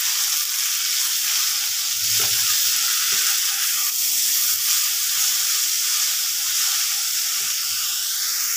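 Jute leaves stir-frying in hot oil in a non-stick pan: a steady sizzle, with a spatula tossing and scraping them through the oil.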